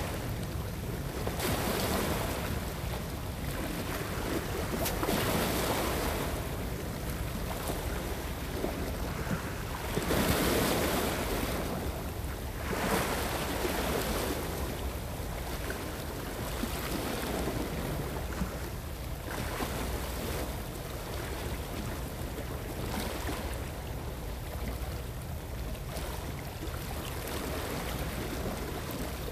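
Sea waves washing against shore rocks, swelling and easing every few seconds, with a low rumble of wind on the microphone.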